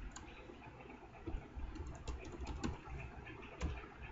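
Typing on a computer keyboard: irregularly spaced keystroke clicks, a few bunched together about two seconds in.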